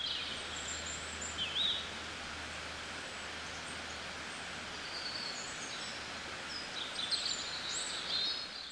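Outdoor ambience: a steady hiss with small birds chirping, short calls scattered throughout and more frequent chirps near the end.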